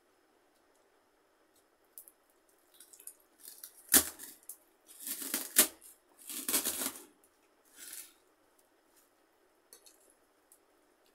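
Fingers mixing rice in a stainless steel plate, with short rustling, squishing scrapes and two sharp clinks against the metal, the loudest about four seconds in.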